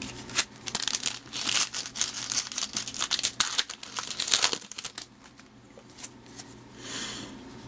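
Foil wrapper of a baseball card pack torn open and crinkled by hand, a dense crackling for several seconds that then thins out to quieter rustling.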